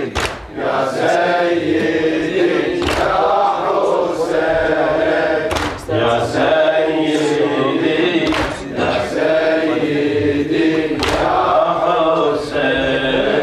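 Shia mourning latmiya: male voices chanting a lament in chorus, led over a microphone. Sharp beats fall about every one and a half seconds, the rhythmic chest-striking of matam.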